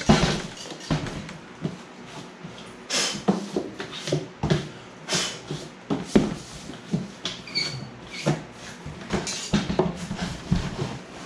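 A plastic cooler being tipped and shaken to empty out plastic shavings and debris, making irregular hollow knocks, rattles and scrapes, with a short high squeak about seven and a half seconds in.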